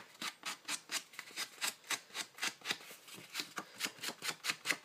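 Rapid rhythmic rubbing strokes, about four to five a second, of an ink applicator being swiped along the edges of a folded paper envelope.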